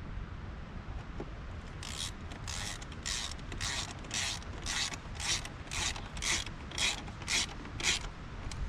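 Ratchet wrench tightening a fastener, worked back and forth about twice a second for some six seconds; each return stroke gives a short rasp of pawl clicks.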